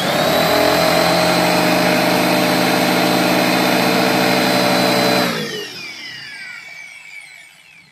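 Handheld electric angle grinder running free with a cloth disc fitted in place of a cutting wheel: a steady high whine for about five seconds. It is then switched off and winds down with a falling pitch.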